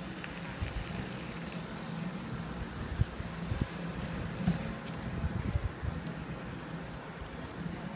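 Outdoor ambience with a steady low hum, broken by a couple of sharp knocks about three seconds in and a run of short thumps in the middle.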